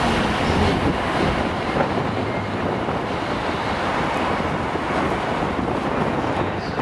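Empty container flat wagons of a freight train rolling past, a steady noise of steel wheels running on the rails.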